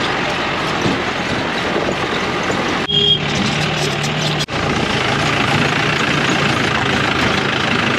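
Old jeep's engine running as it climbs a rough off-road track, with heavy noise over it from the drive. There is a brief dropout about four and a half seconds in.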